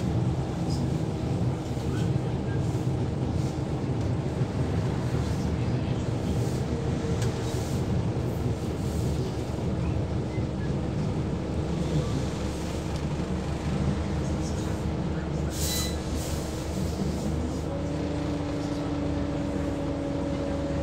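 Scania L94UB single-decker bus on the move, heard from inside: the steady rumble of its five-cylinder diesel engine and the road, with a few clicks and rattles. Near the end a whine in the drivetrain shifts up in pitch.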